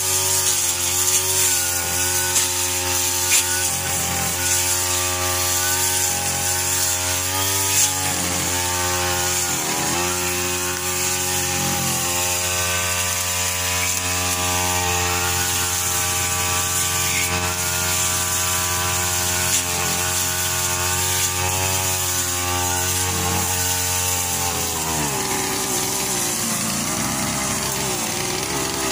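Backpack two-stroke brush cutter running at high revs while cutting grass, its engine note dipping briefly a few times. About 25 seconds in, the revs drop to a lower, unsteady speed.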